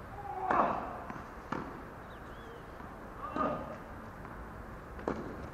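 Tennis balls struck with rackets and bouncing on a hard court during a serve and rally: four sharp pops, the first about half a second in, the rest about one and a half to two seconds apart.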